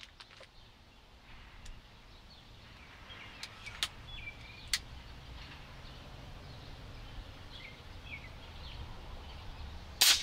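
One loud shot from a .257 Texan big-bore air rifle near the end, the loudest sound here. Before it there are birds chirping, two sharp clicks about four seconds in, and a steady low wind rumble.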